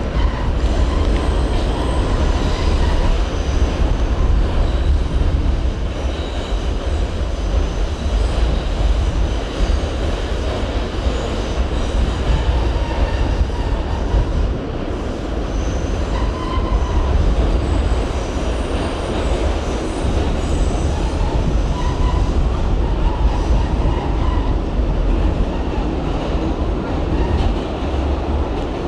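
R68 New York City subway train running along the track: a steady, loud low rumble of wheels and running gear, with brief high wheel squeals coming and going.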